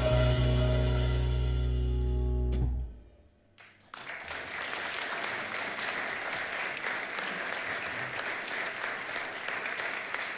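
A jazz piano trio with electric bass and drums holds the last chord of a piece, which cuts off about three seconds in. After a second's hush the audience starts applauding and keeps on clapping.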